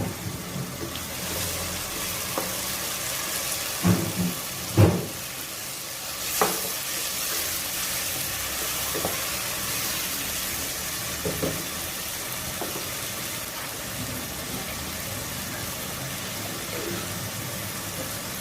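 Food frying in hot oil in a pan, a steady sizzle, with a few knocks of a spoon or spatula against the pan as it is stirred.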